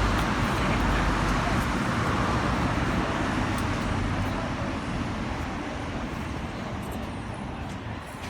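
Road traffic noise: a motor vehicle's rumble and tyre noise that fades gradually over several seconds.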